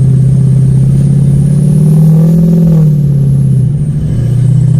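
Diesel pickup truck engine breathing through a 10-inch exhaust stack, pulling through deep snow on a bumpy trail. It revs up about two seconds in, then eases off briefly near the end before picking up again.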